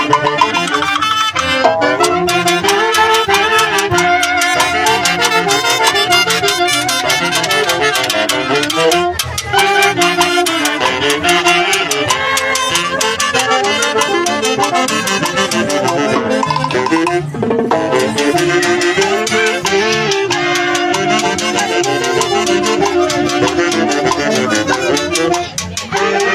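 Live band of saxophones and a drum set with cymbals playing a lively dance tune, the saxophones carrying the melody over a steady, fast drum beat.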